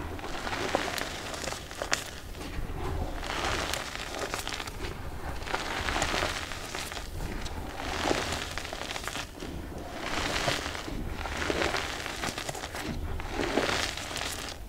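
Clumps of green-dyed reformed gym chalk crushed and crumbled between bare hands over loose powder: soft crunching and powdery hissing that swells every second or two as each handful is squeezed, with scattered sharp crackles.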